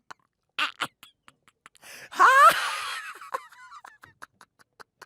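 An exaggerated, put-on laugh: short breathy wheezes, then a loud high squeal with sliding pitch about two seconds in that trails off into thinner wavering squeaks.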